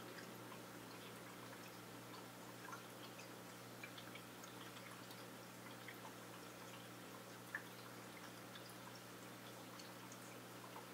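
Faint trickling water in a home aquarium: scattered small drips and ticks over a steady low hum, typical of an aquarium filter running. One sharper tick comes about seven and a half seconds in.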